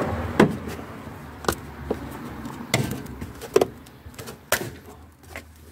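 Wire spring clips on a plastic air filter housing snapped open by hand one after another: about six sharp clicks and snaps, roughly a second apart.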